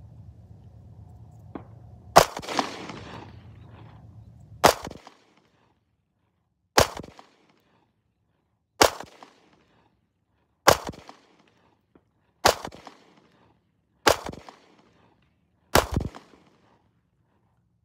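Walther PPS M2 9mm pistol fired eight times in slow, deliberate single shots about two seconds apart, each a sharp crack with a short ringing tail.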